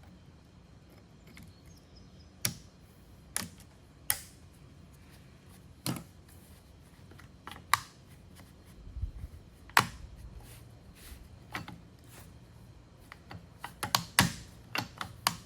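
Irregular sharp knocks and clicks of hard objects, about a dozen, unevenly spaced and bunching near the end, some with a short ring, over a faint low steady hum.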